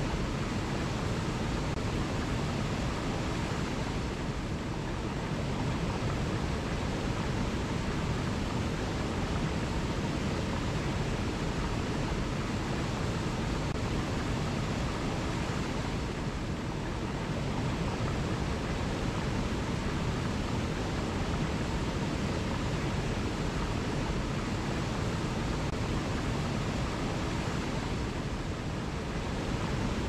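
Small forest waterfall cascading over rocks into a pool: a steady, deep rush of falling water.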